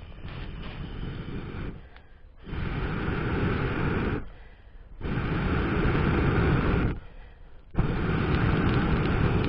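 A person blowing hard on the embers of a trench fire to fan it up, in a series of long blows of about two seconds each with short pauses for breath. The first blow is softer; the later ones, starting about two and a half, five and nearly eight seconds in, are louder.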